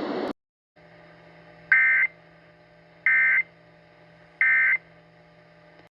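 Emergency Alert System end-of-message code: three short bursts of the digital data tones, about a second and a half apart, over a faint hum. A steady hiss cuts off just before them.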